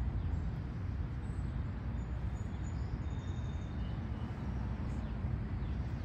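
Outdoor ambience: a steady low rumble, with a few faint, short, high bird chirps between about one and four seconds in.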